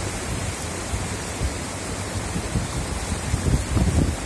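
Muddy floodwater of a swollen river rushing and churning in a steady wash of noise, with wind buffeting the microphone in low gusts near the end.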